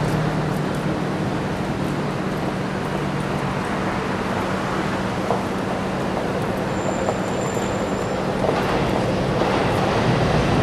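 Steady city-centre rush-hour ambience: a continuous low hum under an even wash of traffic and crowd noise, with a faint high whine for about a second near the middle.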